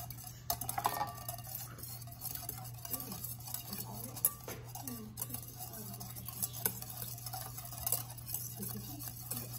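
Egg being beaten in a mixing bowl with a hand utensil: irregular light clicks and scrapes of the utensil against the bowl, over a steady low hum.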